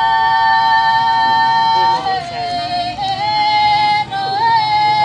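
A high singing voice holding long, steady notes: one held for about two seconds, then dropping lower and climbing again through shorter held notes.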